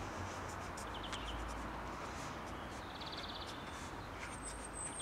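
Faint garden ambience with small birds calling: short rapid chirping trills about a second in and again about three seconds in, and a thin high whistle near the end.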